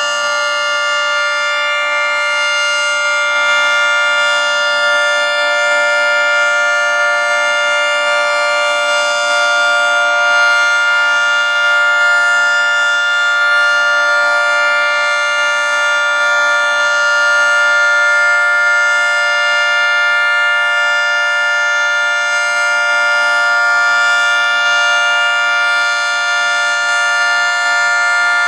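Federal Signal 3T22 omnidirectional three-tone outdoor warning siren sounding its steady alert signal: a loud, sustained chord that holds one pitch without rising or falling.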